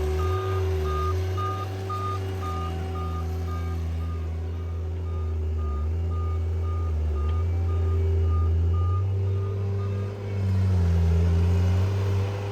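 Tracked skid steer's diesel engine working under load, its backup alarm beeping steadily while it reverses. The beeping stops about ten seconds in, as the engine speeds up.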